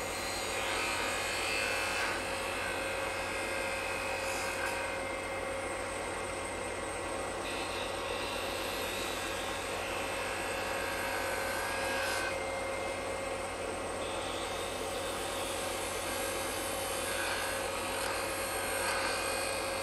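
Wood lathe running with a steady hum while a 3/8 spindle gouge cuts a small maple blank, rolling a bead. The cutting comes and goes in several passes over the hum.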